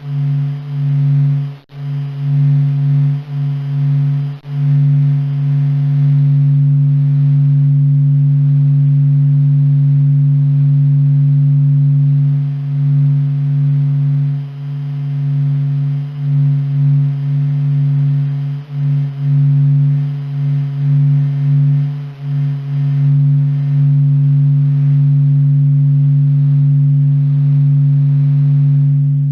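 Sonified solar recording: the Sun's sound, recorded by NASA and ESA and converted to audio at Stanford, a deep, low steady hum with a fainter overtone above it, its loudness dipping briefly now and then.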